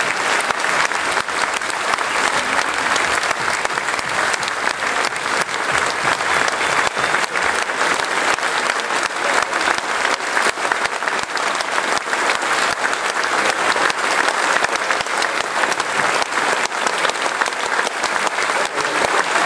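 A large audience applauding in a standing ovation: dense, steady clapping that keeps going without a break.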